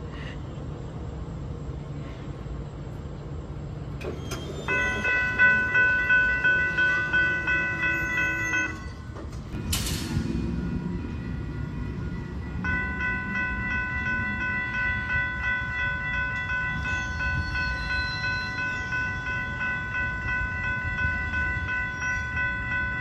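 Train horn sounding for a grade crossing: a blast of about four seconds, then after a short gap a long held blast of about ten seconds. A brief burst of noise and low train rumble come between the two blasts.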